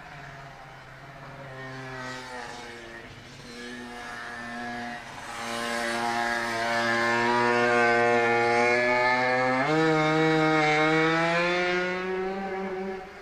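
Yamaha TZM's two-stroke single through a DGW expansion-chamber exhaust, running on a circuit. The revs rise and fall, and the engine is loudest through the middle. Near the end the pitch jumps up suddenly and keeps climbing before the sound drops away.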